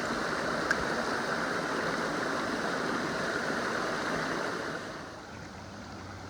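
Shallow creek water running, a steady rushing sound that drops quieter about five seconds in.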